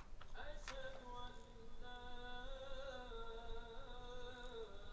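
A single voice singing a slow, wordless melody in long held notes, the pitch stepping down a little near the end, after a sharp click at the very start.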